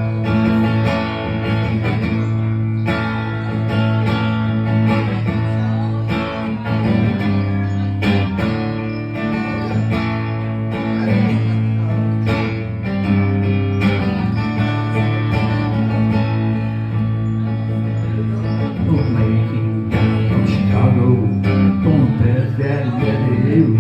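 Guitar-led instrumental break in a song: plucked and strummed guitars over steady low bass notes, with no singing.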